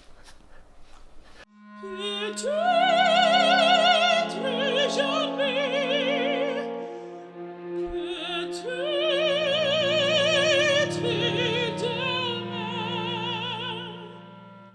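Operatic music: a high voice sings with a wide vibrato over long-held orchestral chords. It comes in about a second and a half in, breaks off briefly about halfway through, and fades near the end.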